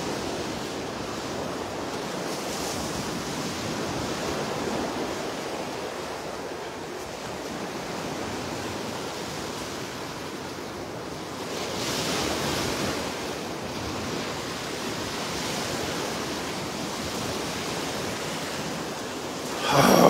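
Gulf of Mexico surf washing onto a sandy beach, a steady rush of breaking waves that swells louder for a moment about twelve seconds in.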